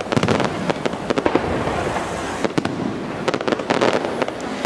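Fireworks display: a rapid string of bangs and crackling reports, densest in the first second and again about three to four seconds in.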